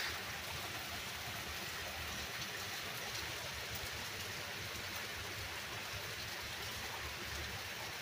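Steady rain falling on foliage, an even constant hiss, with water streaming off a roof edge.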